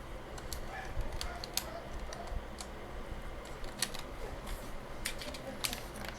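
Plastic keycaps being pressed down onto a computer keyboard's switches: a scatter of sharp, irregular clicks.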